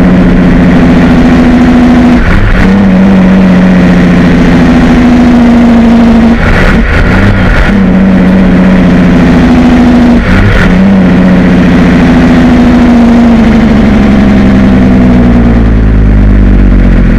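Cummins N14 Plus diesel in a Kenworth T800 pulling through the gears of an Eaton 18-speed, heard inside the cab: a steady engine note that drops out briefly three times, at about two and a half, seven and ten and a half seconds in, as the driver shifts.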